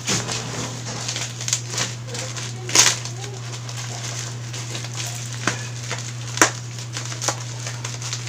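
Plastic parcel wrapping and bubble wrap crinkling and crackling as a taped parcel is torn open by hand, in irregular snaps, the loudest about three seconds in and another about six and a half seconds in. A steady low hum runs underneath.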